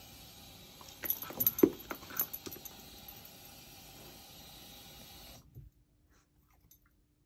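Great Pyrenees puppy moving about on a tile floor: a brief cluster of clicks and small jingles about a second in, like claws and collar tags. The sound then cuts out a little over five seconds in.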